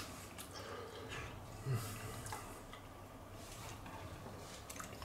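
Quiet eating sounds: faint chewing and a few light clicks of a metal fork against a plate. A brief low hum-like sound comes about a second and a half in.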